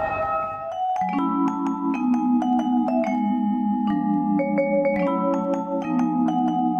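Music: a bright mallet-percussion melody over a steady, pulsing chord accompaniment, coming in about a second in.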